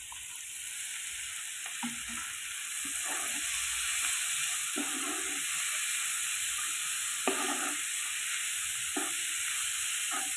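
Oil sizzling in a wok as shelled mussel meat goes into frying chillies, garlic and shallots and is stirred: a steady frying hiss that grows louder over the first few seconds, with a spatula scraping and knocking against the pan every second or two.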